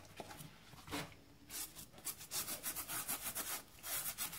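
Brush scrubbing the wet fabric upper of a black Nike Air Max 270 trainer in quick back-and-forth strokes. The strokes are sparse at first and then settle into about four a second.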